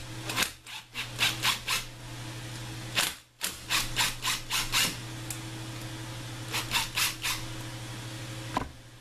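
Makita 18-volt cordless driver run in short, quick bursts, in four clusters, backing out the bolts of an ATV engine's timing chain tensioner. A steady fan hum runs underneath.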